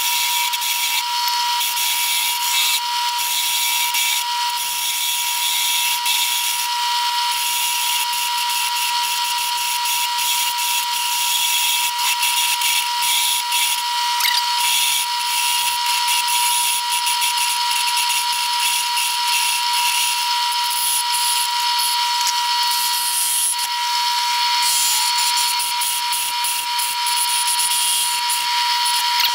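Wood lathe running with a steady high motor whine while a hand-held turning chisel cuts the spinning wooden lure blank, the cutting noise coming and going in short passes.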